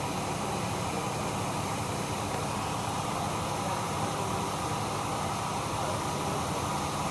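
Chevrolet HHR's engine idling steadily with the air conditioning on maximum and the blower on high: an even running hum with a steady hiss over it.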